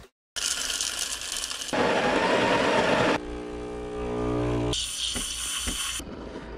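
Breville espresso machine in a quick run of cuts: a noisy rush, then the pump humming steadily as a shot pours, then a high hiss from the steam wand with a few clicks.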